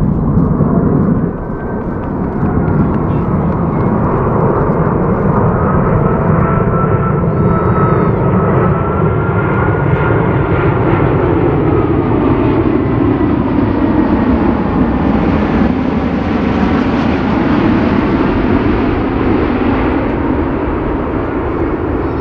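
Airbus A380's four Rolls-Royce Trent 900 turbofans on final approach passing close by: a steady loud jet roar with whining tones that bend down in pitch as the aircraft goes past.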